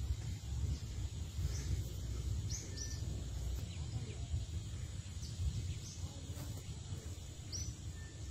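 Outdoor ambience: a steady low rumble with about half a dozen short, high bird chirps scattered through it.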